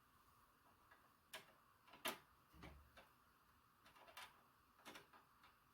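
Faint scattered clicks and taps of small plastic connector parts being handled on a workbench, about five in all, the sharpest about two seconds in.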